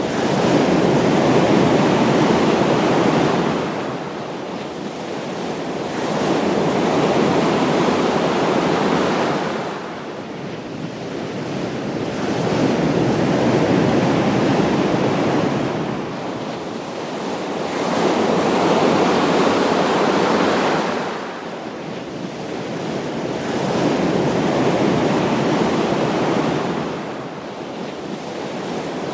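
Ocean waves breaking and washing in, the surf swelling and ebbing about every six seconds, five surges in all.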